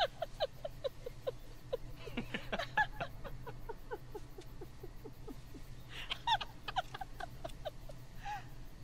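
A woman laughing in several bouts of short 'ha' syllables, each falling in pitch, about three or four a second, over a steady low hum.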